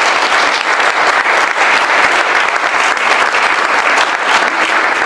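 Audience of a seated crowd applauding steadily, a dense patter of many hands clapping.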